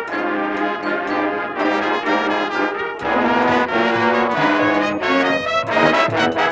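High school marching band playing, led by its brass, in held chords; the band comes in fuller and louder about three seconds in.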